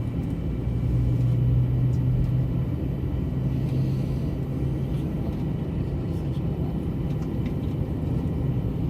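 Airliner cabin noise heard from inside the cabin: a steady low drone and rumble from the engines and airflow, swelling slightly about a second in.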